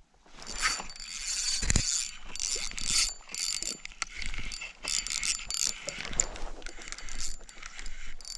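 Fishing reel being cranked hard in quick bursts, its gears and drag ratchet whirring and clicking while a hooked bass is fought. A dull knock comes near two seconds in.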